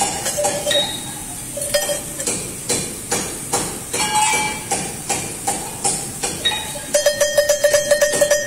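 Sheet-metal sheep bells clanking as they are shaken by hand, with uneven strikes of differing pitch. Near the end, one bell is rung fast and steadily on a single note.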